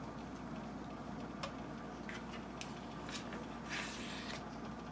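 Light scraping and a few soft clicks of a metal spoon scooping butter from its paper wrapper and tapping it into an empty saucepan, with a short rustle about four seconds in.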